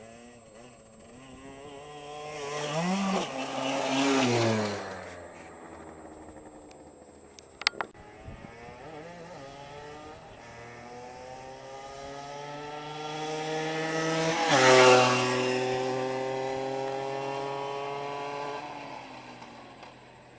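Gilera RCR motorbike engine passing by twice: the engine note climbs as it approaches and drops sharply as it goes past, loudest about 3–4 seconds in and again about 15 seconds in, then fades away. A short click about 8 seconds in.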